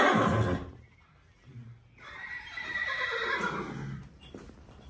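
Horse whinnying. The end of a loud whinny fades out in the first half-second. A second, longer whinny comes about two seconds in and falls in pitch as it trails off.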